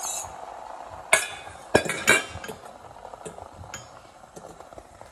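Metal whisk and stainless steel mixing bowl clinking: three sharp clinks between about one and two seconds in, then a few lighter clicks as the bowl and whisk are handled after pouring the eggs.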